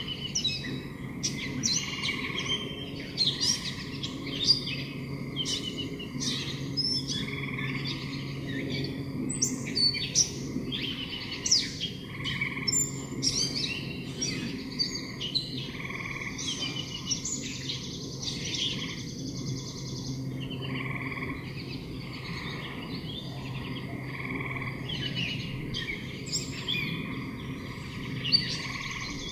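Small birds chirping and trilling in quick, overlapping calls, over a steady low hum.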